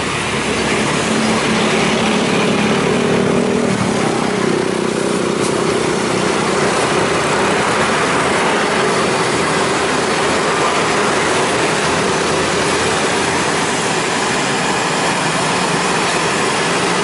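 Steady roadside traffic noise, with a vehicle engine passing in the first few seconds.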